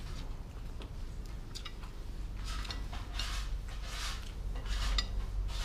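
Chopsticks tapping and scraping on a ceramic plate of stir-fried rice noodles while eating: a few short clicks and several brief swishing scrapes.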